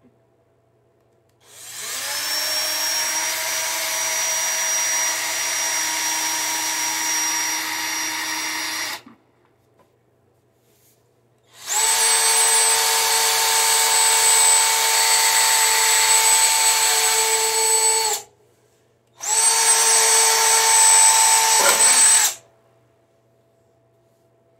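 Cordless drill boring holes in a lawn mower: three runs of several seconds each, the motor winding up to a steady whine each time. The last run dips in pitch just before it stops.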